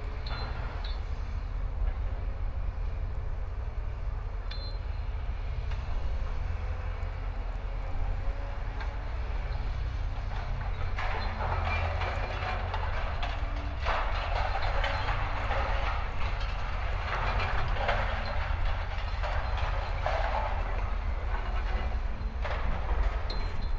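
Heavy diesel machinery running: the Hitachi excavator and wheel loader give a steady low rumble, with repeated stretches of rushing, clattering noise through the middle as the excavator works its load into the loader's bucket.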